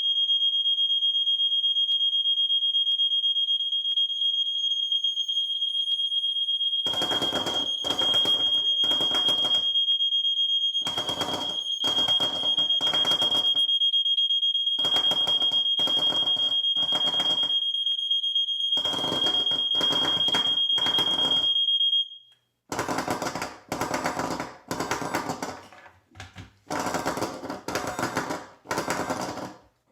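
A smoke detector sounds its test alarm as one continuous high-pitched tone. About a quarter of the way in, a second alarm unit that listens for the smoke alarm sets off loud, harsh buzzing pulses in groups of three, the temporal-three fire-alarm pattern. The smoke detector's tone stops about three-quarters of the way through, and the three-pulse groups carry on.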